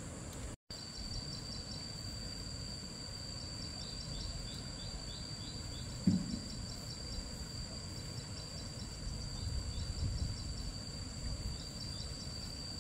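Insects trilling steadily at a high pitch, with a rapid repeated chirping over the top, against a low rumbling background. The sound cuts out for a moment less than a second in, and there is a single thump about six seconds in.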